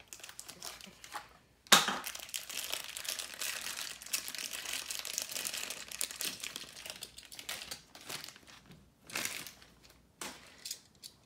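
Thin clear plastic wrapper crinkling as a small die-cast toy car is unwrapped. It starts with a sharp crackle about two seconds in and goes on for several seconds, with another short crinkle near the end.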